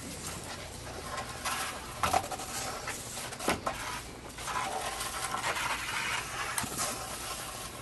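A dog working at a large wooden stick: irregular scraping of wood with several sharp cracks, the loudest about two seconds in.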